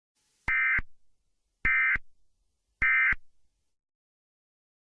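Emergency Alert System end-of-message signal: three short, identical bursts of buzzing digital data tone, a little over a second apart, which close an EAS alert.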